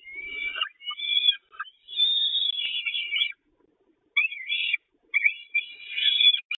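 Peregrine falcons calling in the nest box: runs of high, thin calls, broken by a pause of about a second just past the middle.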